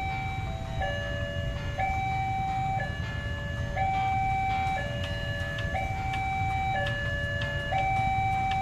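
Electronic two-tone warning alarm sounding steadily, switching between a higher and a lower pitch about once a second.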